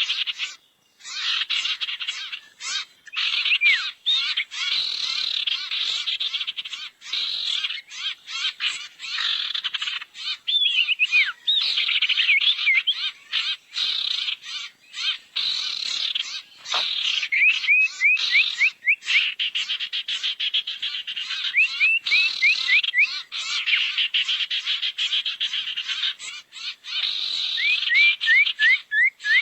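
Bird-lure recording of sirtu bird calls: a dense, rapid, buzzy chattering that goes on with only brief breaks, with runs of short rising chirps laid over it several times.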